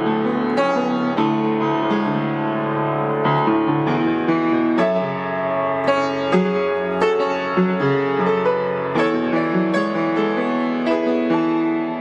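Solo piano playing a song arrangement: held chords under a melody, with new notes struck every fraction of a second.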